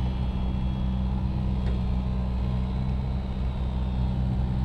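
An engine running steadily with a low, even hum that holds the same pitch throughout.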